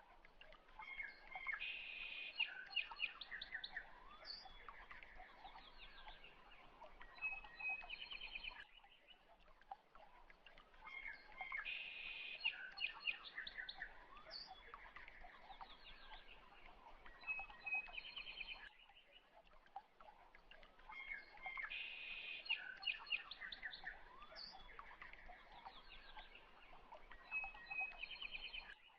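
Birdsong of several short chirps and rapid trills, from a recording that loops about every ten seconds.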